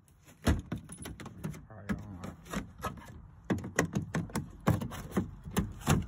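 Trim clip removal pliers popping plastic push-pin retainer clips out of a car door's inner panel: a run of sharp, irregular clicks and snaps with handling rattle, loudest about half a second in and near the end.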